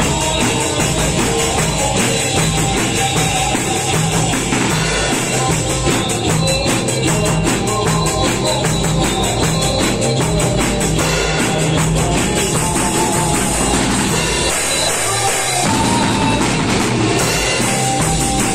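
Live band rehearsal: a drum kit played with fast, even cymbal or hi-hat strokes under an electric guitar in a rock groove, with the bass end dropping out briefly near the end.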